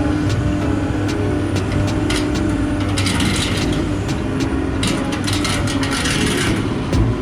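Backhoe engine running steadily, with light clanks and two stretches of hiss partway through.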